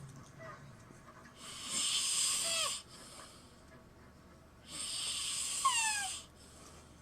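Snoring: two long, noisy breaths about three seconds apart, each ending in a falling whistle.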